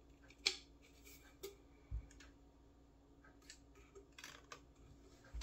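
Faint clicks and light scrapes of a copier fuser's heat sleeve and its end bearing being handled and fitted together, with a soft low bump about two seconds in.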